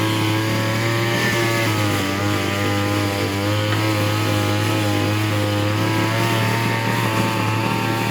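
A small motor running steadily at an even pitch, a constant drone.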